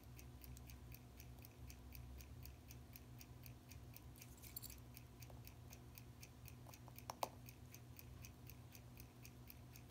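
Faint, steady fast ticking of a mechanical watch, about six ticks a second, with a couple of small sharper clicks of metal tools about seven seconds in.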